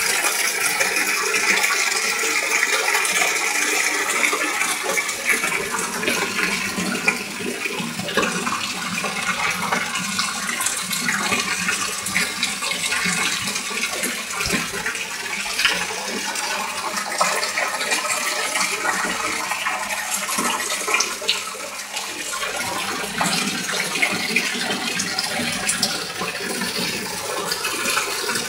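Water splashing and churning steadily at the surface of a pond crowded with fish, with many small splashes.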